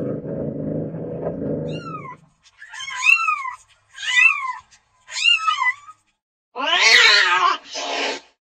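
Domestic cat meowing. A low rough rumble for the first two seconds gives way to four high meows, each rising then falling. Near the end come one long, louder meow and a short one.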